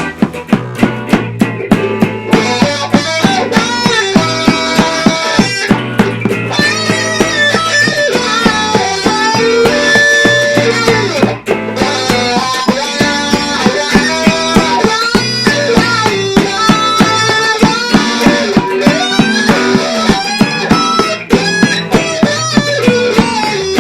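A live band playing an instrumental passage: electric guitar lead over bass guitar and a drum kit keeping a steady beat.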